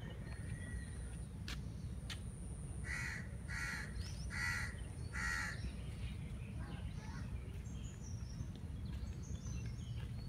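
A crow cawing four times in quick succession, harsh calls about half a second each, over a steady low rumble.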